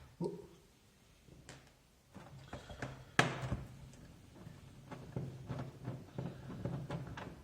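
Plastic clicks and knocks from an old computer keyboard's case being handled and pried apart, with one louder knock about three seconds in and a run of small clicks near the end.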